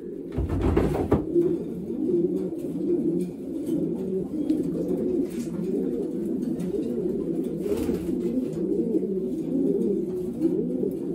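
Racing pigeons cooing, many overlapping coos running on without a break. A thump and rustle stand out about a second in.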